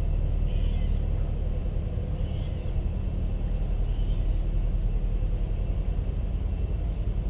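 Narrowboat's diesel engine running steadily at low speed, a low, fast-pulsing rumble. A few short high calls sound over it, about half a second, two and a half and four seconds in.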